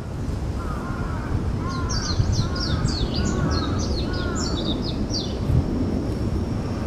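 Birds calling: a run of short falling calls, mixed with quick high chirps for a few seconds, over a steady low rumble of wind on the microphone.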